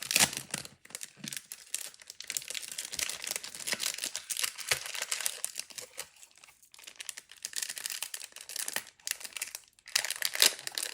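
Crinkling and rustling of a packet of sticker confetti being opened and handled, a dense crackle that breaks off briefly twice, once a little past the middle and again shortly before the end.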